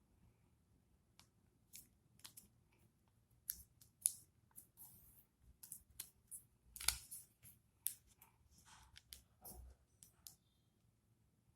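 Sheet of origami paper being folded and creased by hand: faint, irregular crisp crinkles and rustles, a few louder crackles among them.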